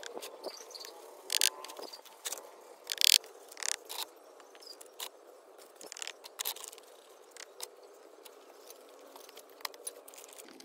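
Irregular clicks and taps of broken ceramic tile pieces clinking against each other as they are picked up and set into sand. The loudest clinks come about a second and a half in and about three seconds in.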